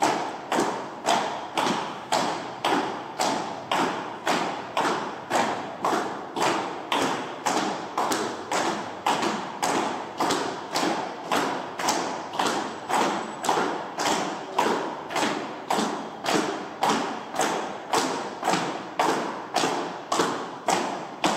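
A steady, even beat of thuds, about two a second, each with a short echoing tail.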